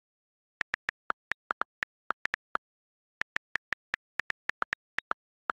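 iPhone on-screen keyboard key-click sounds as a sentence is typed: quick irregular runs of short clicks, with a pause of about half a second midway.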